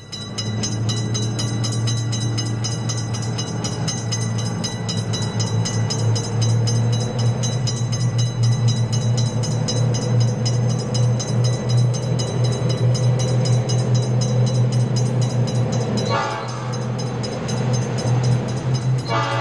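N scale model diesel freight train running: a steady low engine-like drone with fast clicking throughout, and a horn-like blast about sixteen seconds in.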